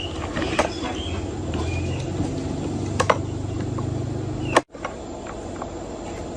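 An engine running steadily, with a few sharp clicks and knocks over it; it cuts off abruptly a little over four seconds in.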